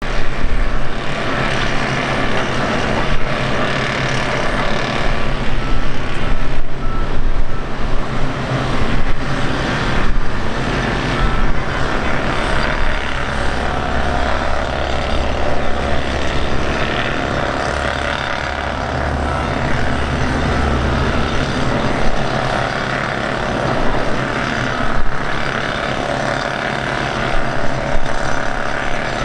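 Aircraft engines running: a steady, loud rushing noise with a low rumble underneath and faint steady whining tones.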